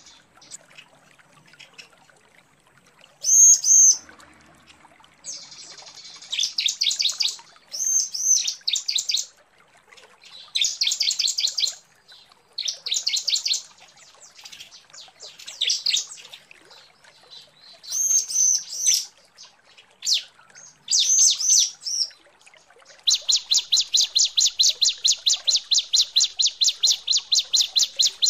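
Female bar-winged prinia (ciblek) calling, the call used to lure males: short bursts of rapid, high chirps separated by brief pauses. The calling ends in a long, even run of quick chirps at about six a second.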